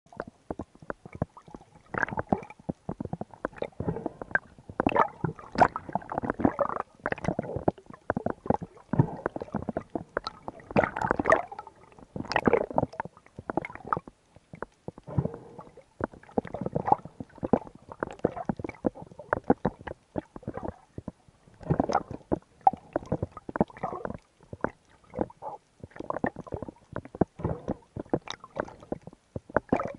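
Underwater sound picked up through an action camera's waterproof housing as a freediver swims down: a continuous irregular gurgling with many small clicks and knocks of water moving around the camera.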